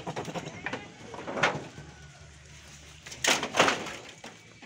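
Several short bursts of rustling and knocking, the loudest a double burst about three seconds in, over a faint low hum.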